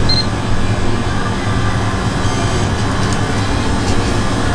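Steady low mechanical hum and drone, as from a running motor or fan.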